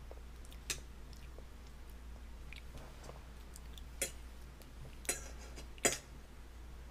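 Toddler chewing a mouthful of fish and chips, with four sharp clicks spread through it, the loudest near the end.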